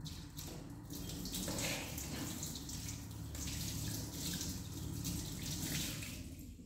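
Water running, a steady rushing splash with a low hum beneath it, that dies away near the end.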